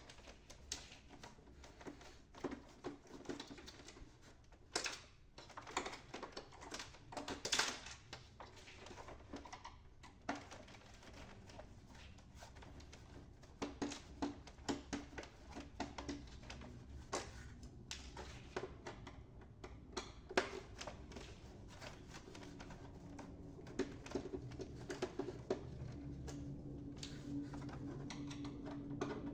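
Faint, irregular clicks and ticks of a small screwdriver working screws out of an inkjet printer's plastic support, with the plastic parts knocking as hands handle them.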